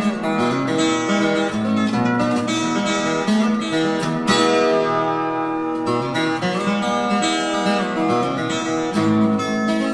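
Instrumental acoustic guitar music, plucked and strummed.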